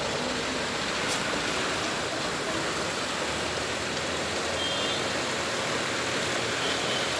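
Steady, even rushing outdoor noise with no clear engine or voice in it. A faint click comes about a second in, and a few faint short high beeps a little after four and a half seconds.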